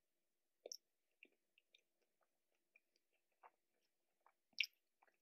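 Close-miked chewing of a burger: faint scattered wet mouth clicks, with two louder sharp sounds, one under a second in and one near the end.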